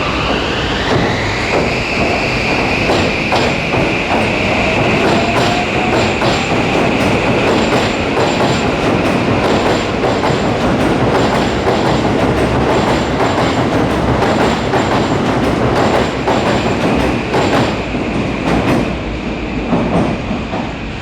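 Electric train pulling out of a station: its motors give a whine that rises in pitch over the first couple of seconds and then holds steady, while the wheels click repeatedly over the rail joints.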